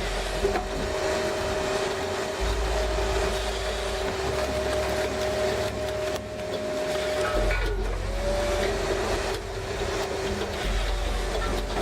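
Heavy machinery running: a steady, noisy mechanical sound with two constant whining tones, one of which dips and slides back up about two-thirds of the way through.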